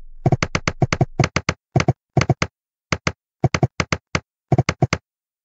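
Typing sound effect: sharp keyboard-like clicks in quick, irregular runs, stopping abruptly about half a second before the end.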